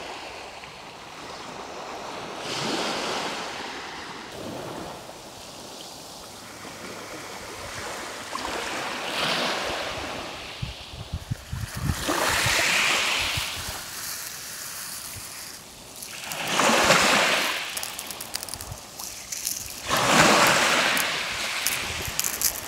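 Sea waves breaking on the shore, swelling and falling away in surges every few seconds, the loudest coming near the end, with wind rumbling on the microphone in places.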